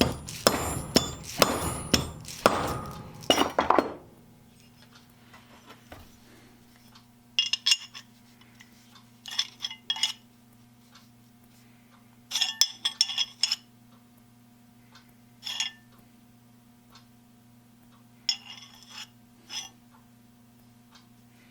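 Rapid, loud strokes of a wire brush scrubbing the steel of an old adjustable wrench for about four seconds. Then short groups of light metallic clinks at intervals as the metal is handled, over a steady low hum.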